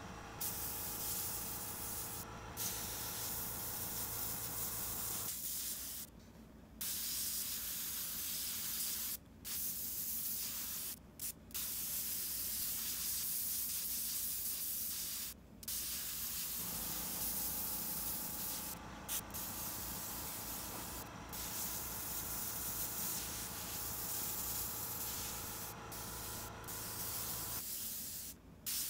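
Siphon-feed airbrush spraying black paint onto a paper towel: a steady hiss of air through the nozzle, cut by short pauses each time the trigger is let off.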